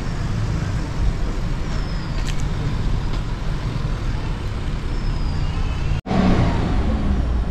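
A steady low rumble of outdoor background noise, which cuts out for an instant about six seconds in.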